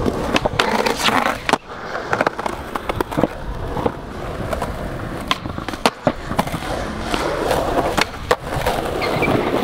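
Skateboard rolling with a continuous rumble of the wheels, broken by many sharp clacks and knocks of the board throughout.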